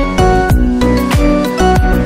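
Background music with pitched melodic notes over a steady beat, about one beat every 0.6 seconds.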